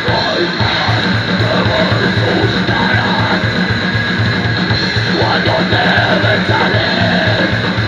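Grindcore band playing live: distorted electric guitar over fast drums, about five beats a second, with growled vocals into the microphone. The band gets louder right at the start.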